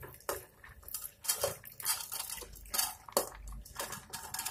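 Wet chana dal being tipped and pushed by hand from a steel bowl into an aluminium pressure cooker of masala: a series of soft wet splats, with sharp clinks of the bowl against the cooker's rim.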